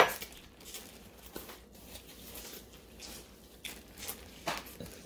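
A person eating seafood-boil food by hand: quiet biting and chewing, with a few short clicks and smacks scattered through, the plainest near the end.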